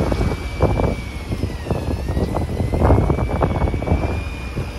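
Fishing boat at sea: a low engine rumble under an uneven rushing noise, with a thin high whine that drifts slowly up and down in pitch.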